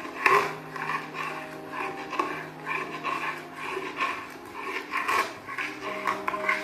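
Flat metal spatula scraping and stirring thick, curdled sweetened milk in a steel kadhai, about two to three strokes a second with metal clicks against the pan. It is scraped along the bottom so the mixture does not stick.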